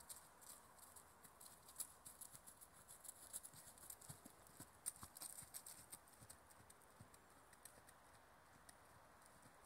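Faint hoofbeats of a trotting horse on grass: a quick, irregular run of light clicks and dull thuds that is loudest as the horse passes close, a few seconds in, then fades away after about six seconds.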